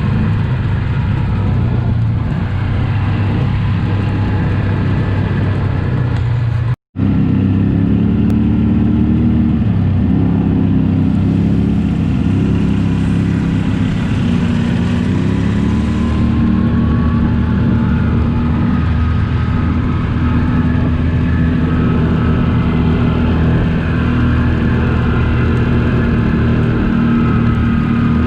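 ATV engine running while riding, its pitch shifting a little with the throttle. The sound cuts out for an instant about seven seconds in.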